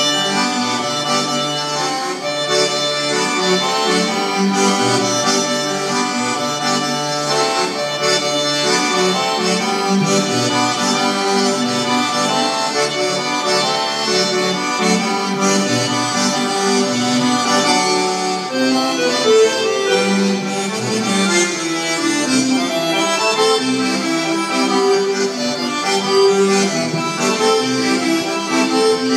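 Piano accordion played solo: a melody on the keyboard over low bass notes and chords, the notes held and changing continuously.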